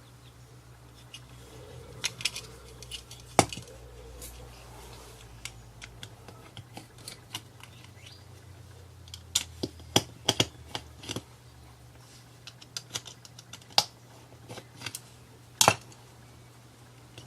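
Irregular sharp clicks and taps of a small plastic device and tools being handled on a bench, the loudest about three and a half seconds in and a double click near the end, over a faint steady low hum.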